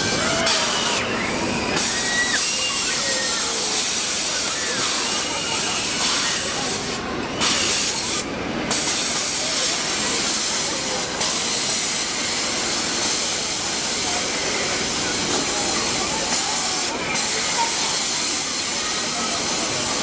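Rotating airplane ride running, with a steady hiss throughout and faint voices under it.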